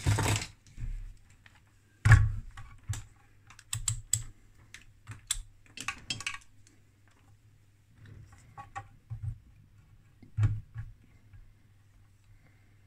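Irregular clicks and knocks of a handheld digital multimeter being handled: set down on a metal equipment cover, its rotary dial and buttons worked, and its test-lead probes picked up and placed. The loudest knock comes about two seconds in, and the clicks thin out in the second half.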